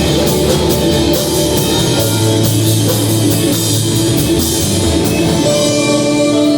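Rock-style band music with guitar and a steady drum-kit beat; near the end the drums thin out, leaving held notes.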